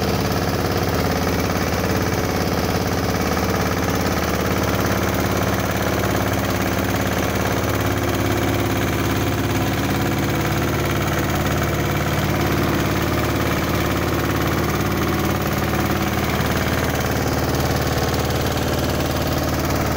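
Boat engine running steadily at an even speed, a low engine note that does not change.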